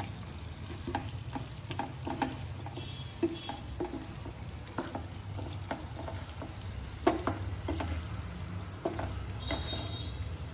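Wooden spatulas stirring and tossing paneer, onion and capsicum in sauce in a non-stick pan on high heat: light sizzling with irregular soft knocks and scrapes of wood on the pan, the sharpest knock about seven seconds in.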